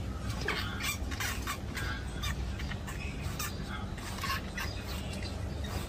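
Rat squeaking: many short, irregular high-pitched squeaks and chirps, over a steady low hum.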